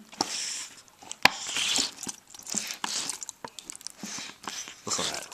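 Leftover gelatin meat aspic being mashed in a plastic container: wet squelching in repeated bursts that sounds gross, with one sharp click about a second in.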